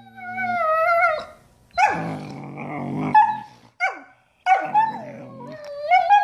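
Two German Shepherds play-fighting, trading growls and drawn-out whines and yowls that rise and fall in pitch. There are several calls in a row, with short pauses between them.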